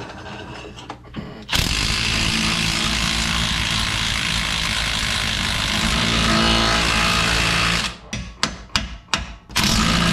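Cordless impact wrench hammering on the forcing screw of a pitman arm puller, pressing a stuck pitman arm off the steering gearbox shaft. It starts about a second and a half in and runs for about six seconds, then comes in a quick string of short trigger bursts and one more longer burst near the end.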